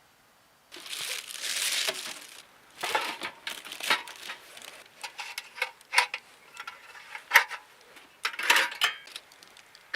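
Crinkling and rustling of something being handled, then a run of small sharp clicks and knocks.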